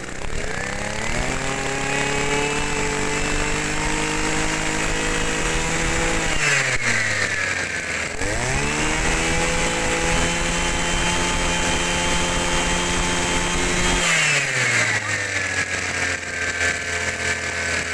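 Kioritz 315 two-stroke brush cutter engine (31 cc) revved from idle up to high speed and held there for about five seconds. It drops back to idle, revs up and holds again for about six seconds, then falls back to idle for the last few seconds.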